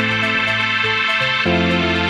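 Background music with held chords that change about one and a half seconds in.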